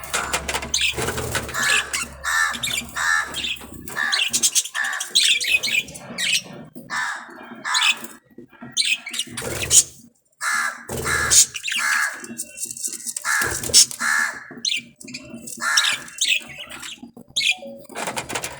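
Budgerigar calling in a steady string of short, harsh chirps and squawks, with sharp scratchy clicks between the calls.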